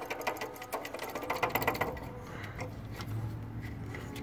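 Worn-out water pump being rocked by hand at its pulley flange: the shaft clicks and knocks in its loose bearing in a quick, irregular run of clicks, busiest in the first two seconds.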